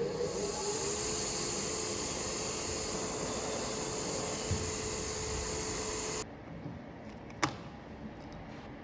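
A steady, loud spraying hiss of air, with a faint steady tone under it, that cuts off abruptly about six seconds in; a single sharp click follows about a second later.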